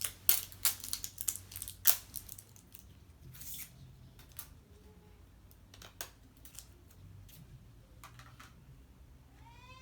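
Plastic wrapping crinkling and tearing as a toy package is torn open: a quick flurry of sharp crackles in the first couple of seconds, then scattered ones. Right at the end comes one short meow.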